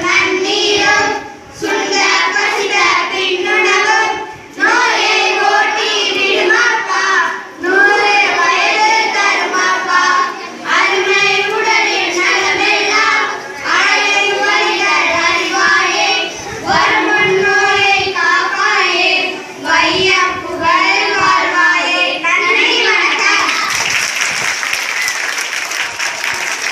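A child singing a song, phrase after phrase with short breaths between. About 23 seconds in the singing gives way to a broad, even hiss of noise.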